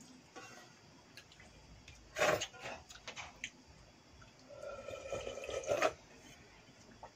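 Liquid being drunk from a stainless-steel pot: the leftover water of pokhala bhat (soaked rice) slurped, with a short loud slurp about two seconds in, then a longer drink with a held tone from about four and a half seconds to six. Water drips and spills onto the concrete floor.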